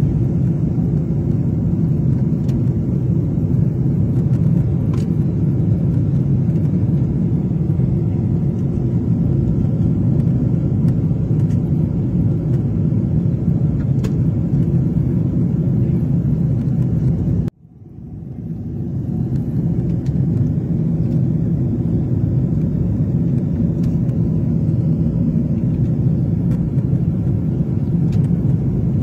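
Steady low rumble of an airliner's jet engines heard inside the cabin while the aircraft rolls on the ground. About two-thirds of the way through, the sound cuts out abruptly and swells back in over a second or two.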